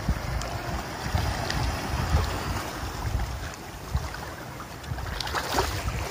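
Wind buffeting the microphone in gusts over the wash of shallow seawater, with a few short splashes about five seconds in.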